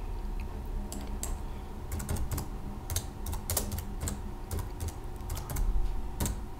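Typing on a computer keyboard: irregular light key clicks, a few a second, over a faint steady hum.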